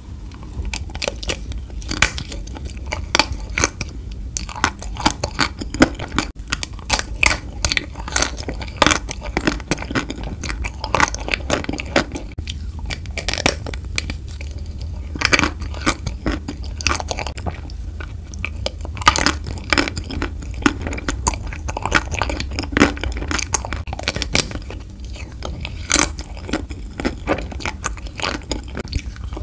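Biting and chewing a chocolate Tico piece: many sharp, irregular crunches and mouth clicks throughout.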